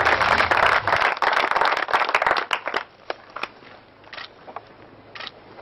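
Audience applauding: dense clapping that thins out to a few scattered claps about three seconds in, with a low hum underneath that stops about a second in.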